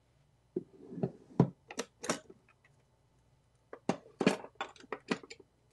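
Kitchen utensils and containers being handled: a string of short clicks, clacks and knocks in two flurries, with a pause in the middle.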